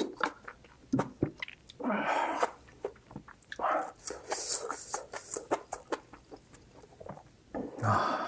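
Close-miked eating of spicy ramen and kimchi: chewing and wet mouth noises in several separate bursts, with a few sharp clicks in between.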